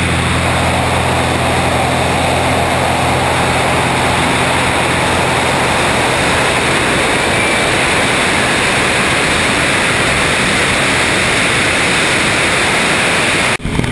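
Loud, steady wind rushing over a camera mounted outside a single-engine propeller plane in flight, with the engine's low drone underneath, fading after the first second. The sound breaks off sharply near the end.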